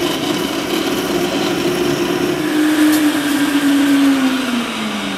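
Alton commercial blender in its sound enclosure, blending sugarcane juice and ice for a smoothie. The motor runs with a steady whine, and its pitch slowly falls over the last two seconds as it starts to slow down.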